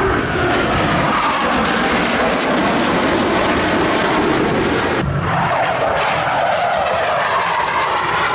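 Loud jet noise from Blue Angels F/A-18 Hornets flying past, with a falling pitch sweep in the first few seconds. About five seconds in the sound changes sharply as another jet's noise takes over, its pitch dipping and then rising again.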